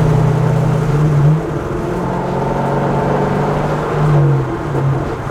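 Straight-piped C6 Corvette V8 exhaust with the mufflers deleted, heard from inside the cabin with the windows down while cruising at about 60 mph. It is a steady drone, with the note lifting briefly a little after one second in and again around four seconds in.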